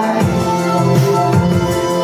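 Instrumental accompaniment of a song during a break in the vocal line, with sustained chords over a bass line that steps to a new note every half-second or so and a steady beat.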